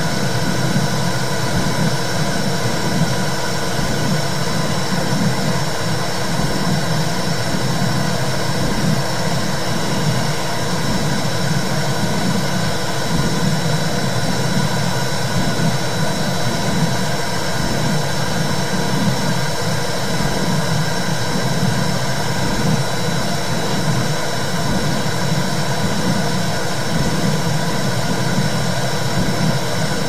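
Recorded womb sound: a loud, steady low whooshing rumble that wavers continuously, with a hiss above it and a thin steady high tone.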